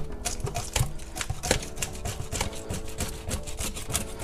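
A hand fish scaler scraping the scales off a black drum, in quick rasping strokes several times a second, over background music.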